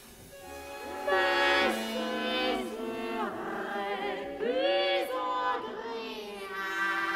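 A countertenor sings a French line with sliding, swooping pitches over a sparse chamber ensemble. Low sustained string notes come in near the end.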